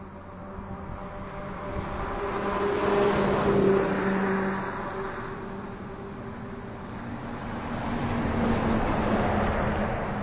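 Road traffic on a highway: vehicles passing with a steady engine hum and tyre noise that swells twice, a few seconds apart.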